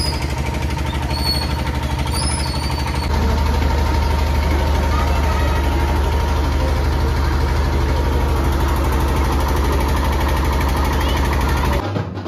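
Truck engine idling steadily close by with a fast, even low pulse, growing louder about three seconds in and stopping abruptly just before the end.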